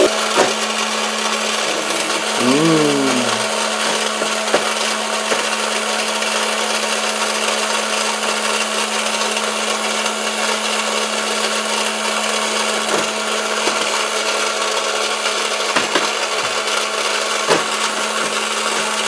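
Small electric motor and plastic gear train of a Playmates Fun-To-Drive toy dashboard running steadily, with a constant hum and a few light clicks.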